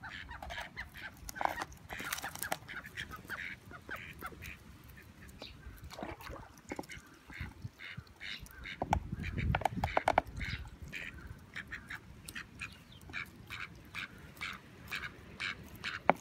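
White domestic ducks quacking in rapid strings of short calls. A louder, low noise comes in about nine seconds in and lasts about a second.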